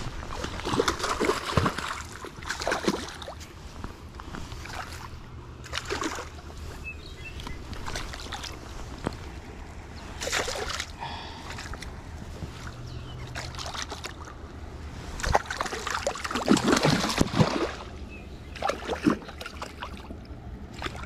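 A hooked rainbow trout splashing and thrashing at the water's surface at the bank as it is being landed, in irregular bursts with the biggest splashes about three-quarters of the way through.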